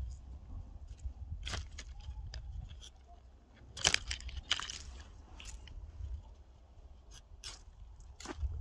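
Snap-off utility knife cutting and stripping bark from a willow stem: a scattered series of crisp crunches and cracks, the loudest about four seconds in, over a low rumble.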